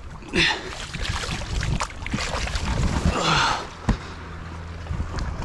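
Small inflatable boat being launched into shallow water: water sloshing against the pontoons, with the hull rubbing and a few sharp knocks.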